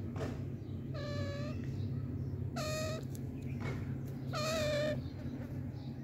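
Alexandrine parakeet giving three separate drawn-out, meow-like calls, each about half a second long, the last one slightly wavering.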